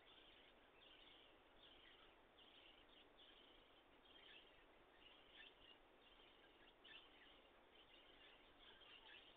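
Near silence: a faint steady hiss with faint, high, short chirps recurring throughout. The peafowl does not call.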